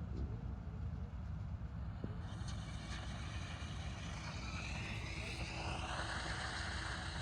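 Combine harvester running in a paddy field: a steady low engine rumble, joined about two seconds in by a higher mechanical whine and hiss that shifts in pitch and grows louder toward the end.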